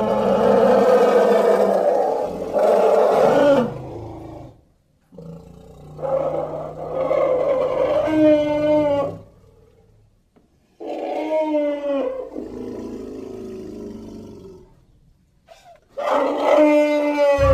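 Creature sound effect built from elephant and woolly mammoth calls: four long, loud, elephant-like calls, each lasting a few seconds with a short pause between them, the last starting near the end.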